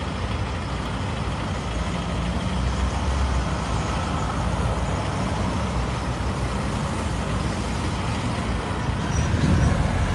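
Street traffic noise with a motor vehicle's engine running close by, a steady low rumble.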